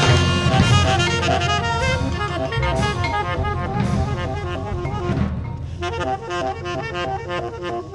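Jazz recording with saxophone and drums, busy and full. About five seconds in the drums and low end drop away and the melodic notes carry on more quietly.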